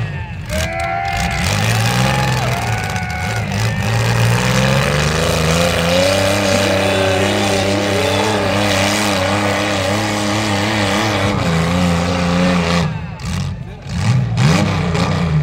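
Demolition derby car's engine revving hard as it drives through the mud, pitch rising and falling at first, then held at high revs for several seconds before dropping off near the end.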